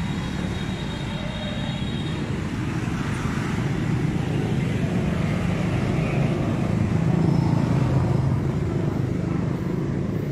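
Steady road traffic: engines and tyres of passing motor vehicles, swelling in the middle as heavier traffic goes by.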